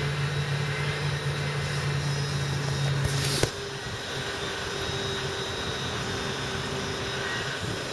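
A steady low machine drone that cuts off abruptly about three and a half seconds in. A different steady whir with a faint hum follows: the ventilation and equipment fans of a modern low-floor tram standing at rest.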